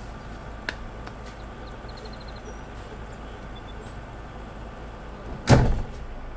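A door shuts once with a loud thump about five and a half seconds in, over a steady low rumble.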